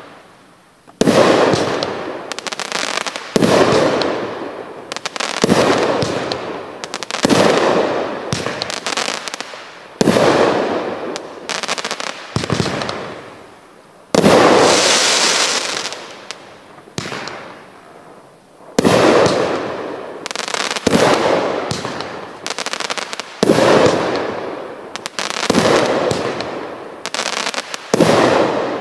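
A 25-shot, 500 g consumer fireworks cake firing shot after shot, about one every two seconds. Each shot is a sharp bang that tails off over a second or two. About halfway through, one volley carries a strong crackling hiss.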